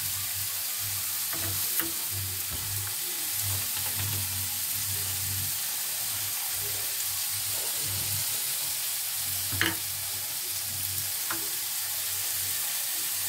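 Diced potatoes, pumpkin and green beans frying in oil in an aluminium kadai over a gas burner, sizzling steadily. There are a couple of small clicks in the second half.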